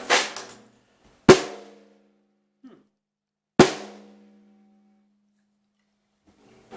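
Ludwig Black Beauty hand-hammered brass snare drum struck in single strokes: one just at the start, then two more about two seconds apart, each ringing on with a low tone that fades over a second or so. The heads are still loose and untuned, straight out of the box.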